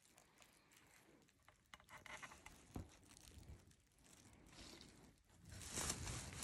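Faint rustling and crinkling of bubble-wrap packaging with small handling clicks as a mirror is turned over in the hands, growing louder near the end.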